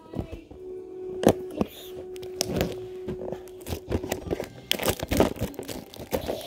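Scissors cutting into a cardboard box to open it: irregular snips, scrapes and tearing of cardboard, with some crinkling.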